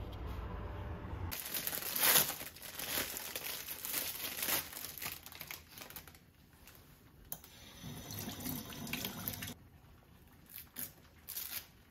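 Plastic bag crinkling and rustling as a zucchini is handled, then a kitchen tap running for a couple of seconds as the zucchini is rinsed, followed by a few light knocks.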